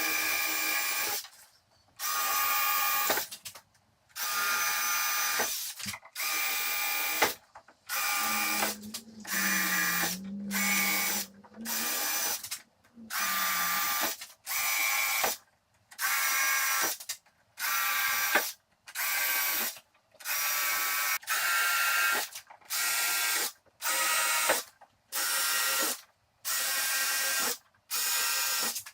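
Power drill boring screw holes through plywood cabinet panels, running in more than twenty short bursts of about a second each, stopping and starting between holes.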